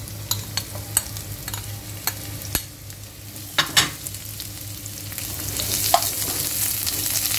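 Sliced onions frying in olive oil in a non-stick frying pan, a metal spoon clicking and scraping against the pan as they are tipped in and stirred. The sizzle grows louder from about five seconds in.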